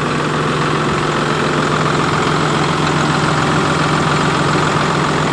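A 2006 New Holland TM140 tractor's six-cylinder diesel engine idling steadily.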